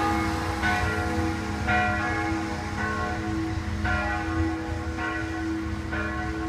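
Three church bells ringing together from the tower, strokes overlapping about once a second, each with a bright cluster of tones over a steady hum.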